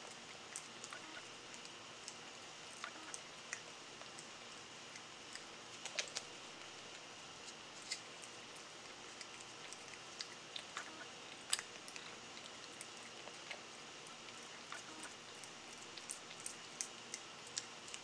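Siamese cat licking a lickable cat treat from a hand-held squeeze tube: irregular small wet clicks and smacks of the tongue, over a faint steady hiss.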